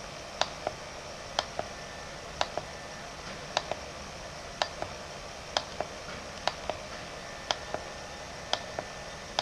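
Computer mouse button clicking about once a second, nine times, each a quick press-and-release pair of clicks, as an on-screen push button is clicked over and over to clock data into a simulated shift register.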